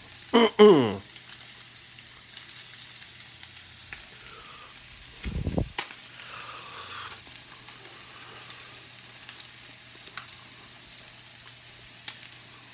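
Tilapia fillets frying in butter in a skillet, a steady sizzle. Two short vocal sounds from the man eating break over it, about half a second in and again around five seconds.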